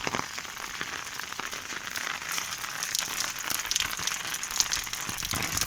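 Heavy rain falling: a steady hiss of countless drops, with many small, sharp drop ticks through it.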